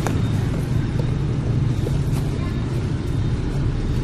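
Road traffic: a steady low rumble of motorbike and car engines passing on a busy street.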